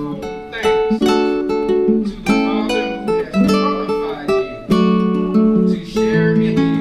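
Acoustic guitar music: plucked and strummed chords with notes changing about every half second.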